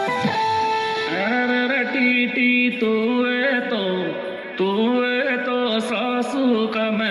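Music of a Rajasthani Meena DJ folk song: a melody of held notes that slide up and down over the backing, with a brief drop about four and a half seconds in before it picks up again.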